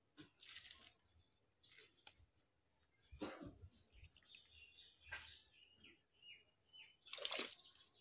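Liquid fertilizer poured from a mug onto the soil of potted plants, splashing in about four short bursts, with faint bird chirps in the background.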